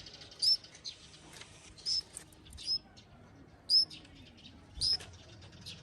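A young pet water bird giving five short, high chirps, about one a second.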